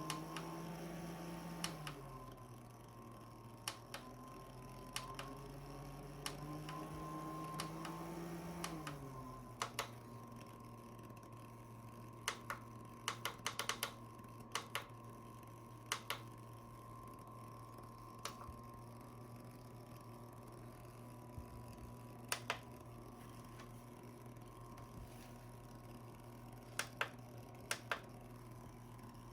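Small battery mini fan's motor humming, its pitch dropping, rising and dropping again as the fan speed changes. Scattered sharp clicks throughout.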